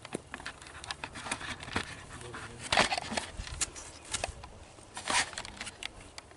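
Scattered crackling and rustling close to the microphone, with two louder crunching scuffs, about three seconds in and again about five seconds in.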